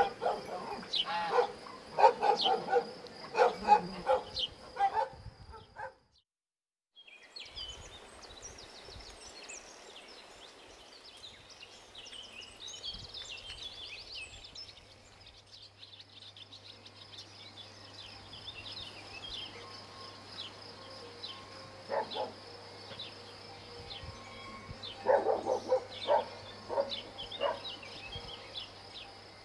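A dog sniffing and chewing at grass, in irregular bursts of snuffling and crunching, over a steady high-pitched insect drone.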